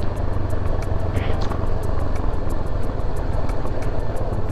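Motorcycle running under way, a steady low rumble of engine and riding noise.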